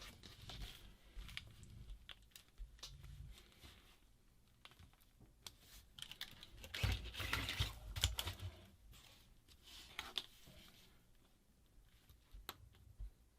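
Small clicks, taps and rustling from handling phone parts, tools and adhesive tape during a screen repair, busiest about halfway through.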